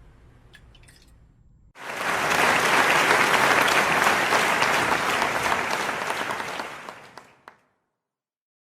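Applause, a dense crackle of many hands clapping, starting abruptly about two seconds in and fading out after about five seconds.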